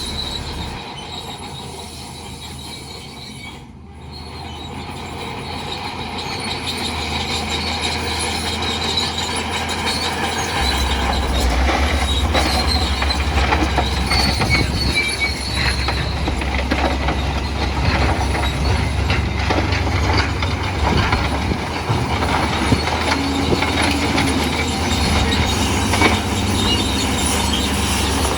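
Bulldozer working, its steel tracks squealing and clanking over a low diesel engine drone. The engine grows louder about ten seconds in.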